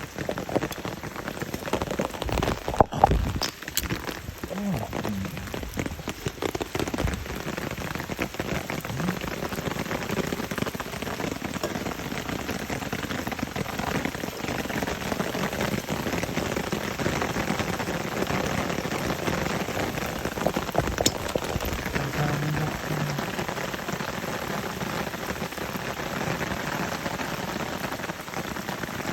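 Water splashing and rushing steadily as a flooded rice paddy is drained, with a single knock about three seconds in.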